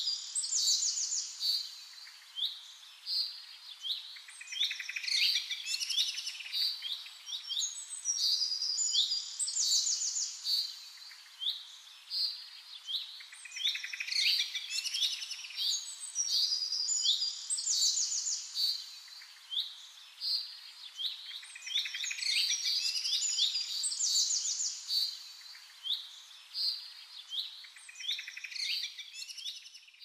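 Songbirds chirping and singing, several birds at once, with quick high trills and chirps that swell and fade in waves every few seconds.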